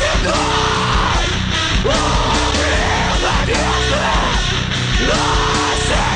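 Heavy rock song playing at full volume, with shouted vocals over a dense band.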